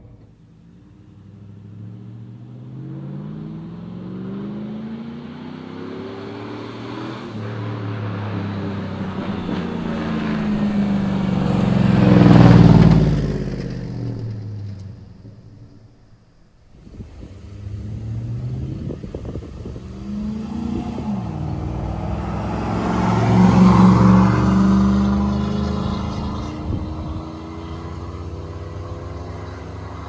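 V8 pickup truck exhaust running through a Flowmaster Super 10 chambered muffler with the catalytic converters removed. The engine note climbs to a loud peak about twelve seconds in and drops away, nearly stops around the middle, then swells to a second loud peak about two-thirds of the way through and fades.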